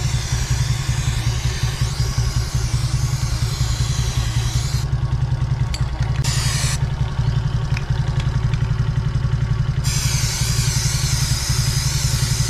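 Aerosol chain cleaner hissing in long sprays onto a motorcycle drive chain. The spray stops twice, briefly about five seconds in and for about three seconds in the middle. Under it, a motorcycle engine idles steadily throughout.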